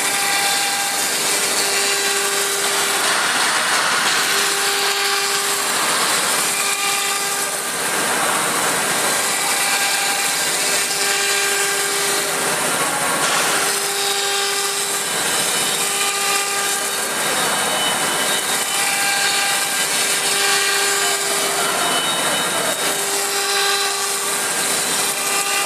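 CNC router's 9 kW HSD spindle running and cutting: a steady machine noise with a pitched whine that comes and goes every second or two as the tool works through the cut.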